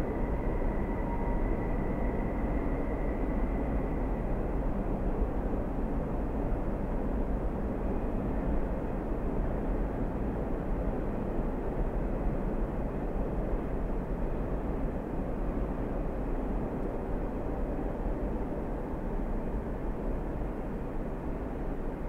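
Train running along, a steady, dense low rumble with no breaks. A faint high tone fades away in the first few seconds.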